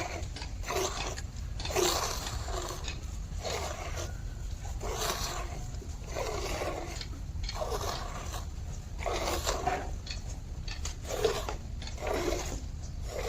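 A dairy animal being milked: rhythmic swishing strokes of milking, about one a second.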